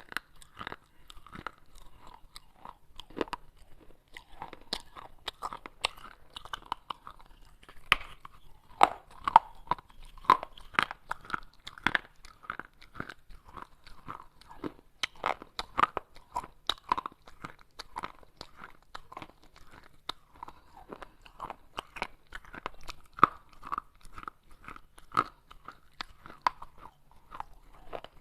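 A person biting and chewing pieces of baked clay pot, with irregular crunching and many sharp cracks.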